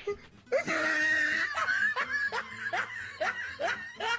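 A person laughing: a brief held note, then a run of short, rhythmic 'heh-heh' snickers at about two and a half a second.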